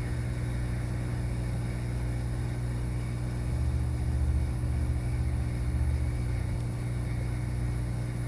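Hot air rework station blowing steadily, a constant hum and hiss of air, with the low rumble swelling a little around the middle.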